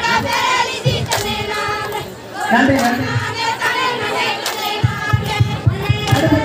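A group of women singing a kummi folk song together in chorus, with sharp hand claps marking the rhythm of the dance.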